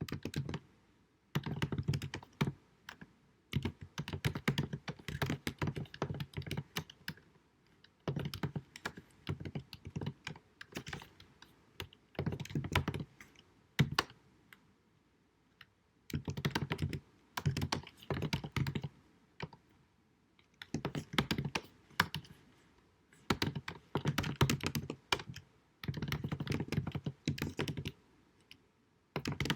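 Typing on a computer keyboard, rapid keystrokes in bursts of a few seconds with short pauses between them, recorded at low quality.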